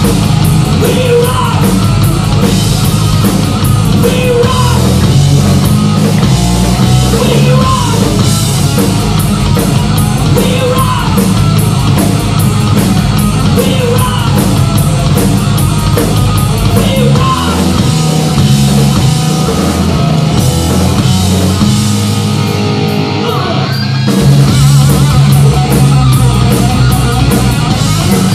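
Live rock band playing loud: electric guitar, bass guitar and drum kit with a singer's voice. About 22 seconds in the cymbals and the lowest notes drop out for about two seconds, then the full band comes back in.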